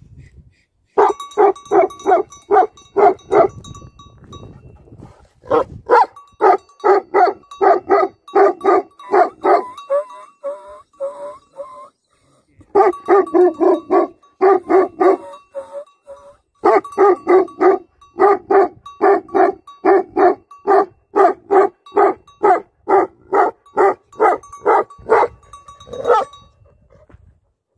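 Tibetan Mastiff barking in rapid runs of loud barks, about three a second, with short pauses between the runs.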